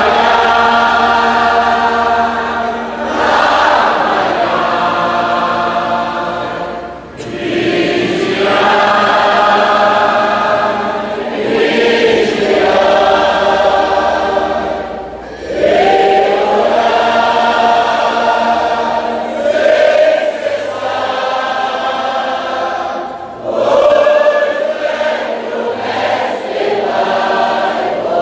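Large congregation singing a hymn together in long phrases, with short pauses between lines.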